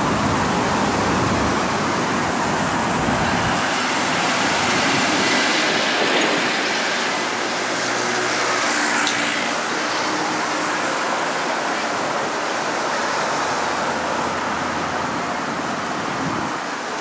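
Steady city road traffic noise, a continuous hiss of passing cars, with a low rumble that drops away about three and a half seconds in.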